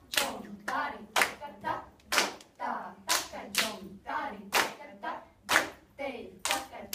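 Hand claps keeping the tala, about two a second, with rhythmic solkattu syllables (ta-ki-ta, ta-ka-dhi-mi) recited in unison between them, as in nattuvangam for a Bharatanatyam korvai.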